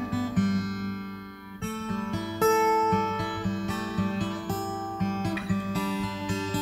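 Background music: acoustic guitar playing a steady run of plucked notes and chords.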